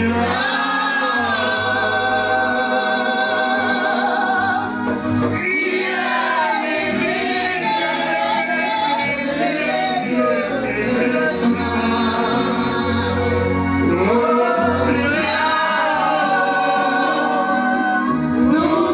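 Choir singing a gospel song, held and sliding sung notes over a low bass.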